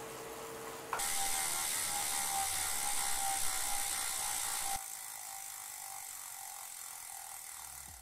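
Elite Direto direct-drive smart trainer whining steadily under pedalling. About a second in the rider stops pedalling and the bike's freehub ratchets as it coasts, while the trainer's tone slowly falls as the flywheel spins down. The clicking cuts off suddenly near five seconds, leaving a fainter steady hum.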